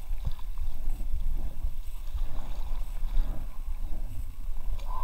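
Water sloshing and swishing against an inflatable kayak moving down a shallow brook, over a steady low rumble on the microphone.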